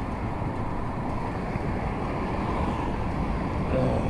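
Steady rumble of passing road traffic, with wind buffeting the microphone.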